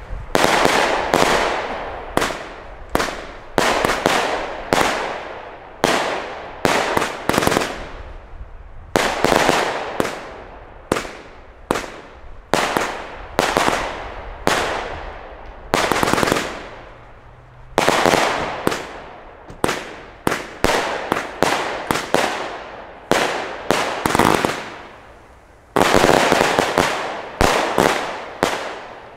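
Albert 'Purple Haze' 100-shot, 20 mm firework battery firing in rapid succession: a long series of sharp bangs, about one or two a second, each with a fading tail. There is a brief lull a little past halfway, and a loud new flurry near the end.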